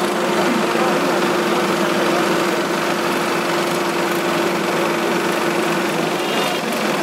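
Diesel engines of two tractors, a Sonalika and an Indo Farm, running hard at high revs while chained together in a tractor tug-of-war. A steady high engine note stops about six seconds in.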